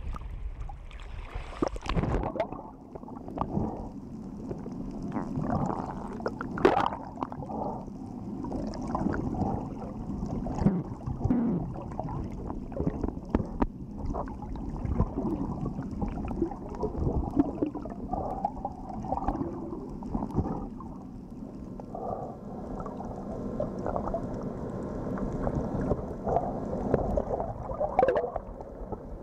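Underwater sound through a camera housing: muffled water noise and gurgling with scattered sharp clicks and knocks. The first two seconds carry a brighter wash of surface water before the sound turns muffled.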